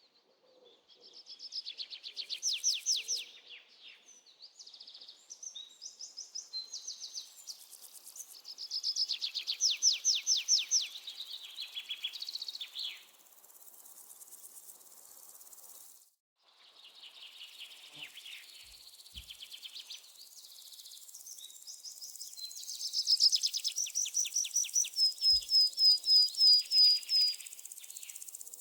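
Songbirds singing in phrases of fast, rapidly repeated high notes with short pauses between them, with insects shrilling in a thin high hiss through the second half. Near the end a bird gives a run of about eight clear, evenly spaced notes, the loudest part.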